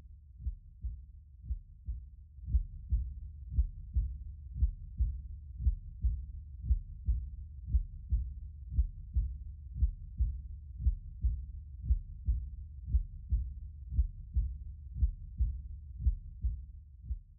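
A low, muffled heartbeat thumping steadily a little over twice a second, fading out near the end.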